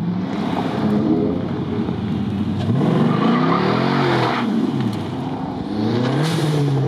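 A Dodge Magnum's engine revving hard as it launches away, its rear tyres spinning on loose grit and hissing, building to a peak and cutting off about four and a half seconds in. Another hard rev with tyre noise comes near the end.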